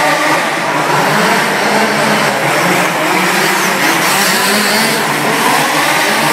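Several radio-controlled off-road buggies racing on a dirt track, their motors running loudly and steadily, rising and falling slightly in pitch.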